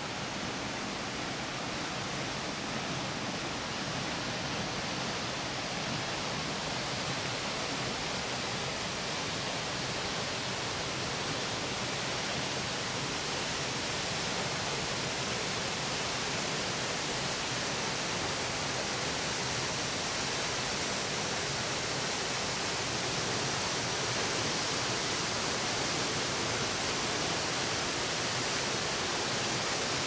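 Steady rush of falling water from a waterfall, an even hiss that slowly grows louder.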